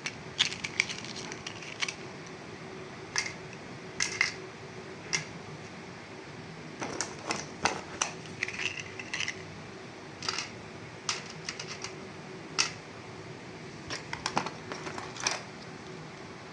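Irregular sharp clicks and taps of plastic toy train parts being handled and fitted together, coming singly and in quick clusters with short pauses between.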